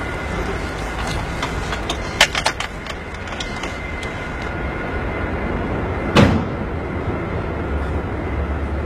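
A Mini's engine running at idle, a steady low rumble. A few light clicks come about two seconds in, and a single loud clunk comes about six seconds in.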